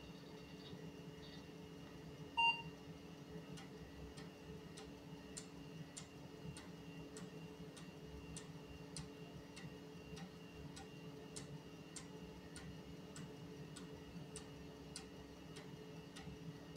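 Vintage 386 PC booting. About two and a half seconds in comes a single short PC-speaker POST beep. Then the floppy drive ticks steadily, a little under twice a second, as the Linux kernel loads from the boot floppy, over the steady hum of the computer's fans and drives.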